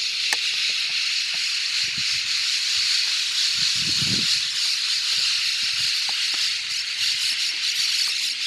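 Steady, dense high-pitched hiss with a brief faint low rumble about four seconds in.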